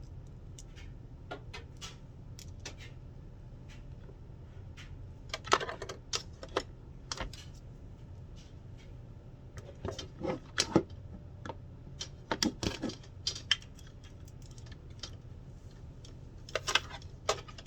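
Hands handling a new cutting machine and its packaging: scattered clicks and knocks, coming in several short clusters with pauses between.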